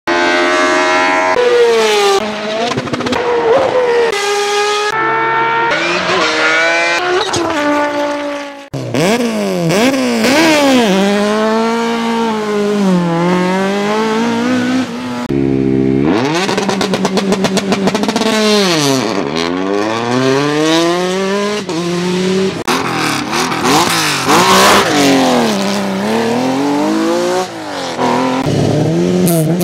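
A run of rally car engines, among them historic Ford Escort and Porsche 911 rally cars, revving hard and dropping back again and again through gear changes and corners. The sound cuts abruptly from one car to the next several times.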